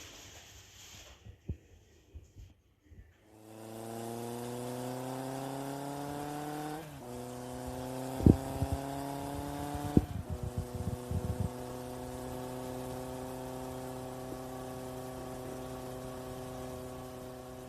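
A steady machine-like hum starts about three seconds in, its pitch creeping up slightly and then holding level. Two sharp knocks come near the middle, followed by a short run of light ticks.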